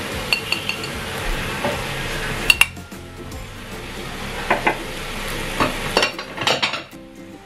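Chicken, potatoes and carrots sizzling in a metal pan; the sizzle dies down about halfway through. A spoon then clinks and scrapes against the pan several times as the food is stirred.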